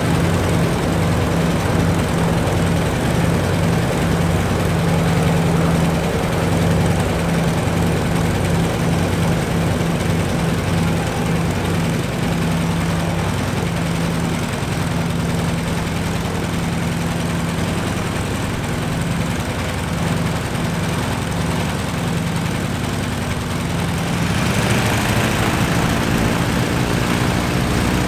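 Stinson L-1's Lycoming R-680 nine-cylinder radial engine running steadily on the ground with the propeller turning. Its note rises and brightens about four seconds before the end.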